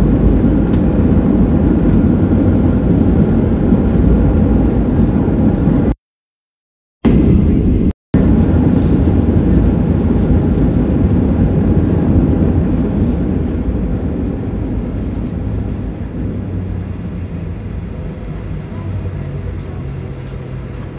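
Cabin noise of a Southwest Airlines Boeing 737 rolling down the runway after touchdown: a loud, steady rumble of engines and wheels that fades gradually through the second half as the jet slows, leaving a steady low engine hum near the end. The sound cuts out twice, for about a second six seconds in and briefly just after.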